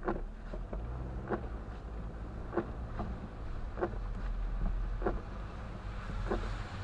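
Inside a moving car in the rain: a steady low road-and-engine hum, with the windshield wipers sweeping the glass and a short knock from the wipers about every second and a quarter.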